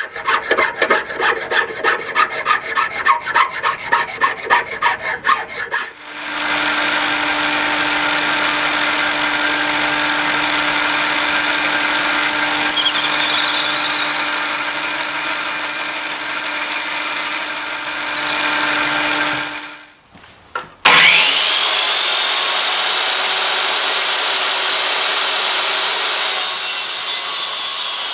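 A hand file rasping back and forth on a wooden handle, about three strokes a second. Then a drill bores steadily into the end of the handle, with a squeal that rises, holds and fades. After a short pause a power sander spins up with a rising whine and runs steadily, sanding the wood.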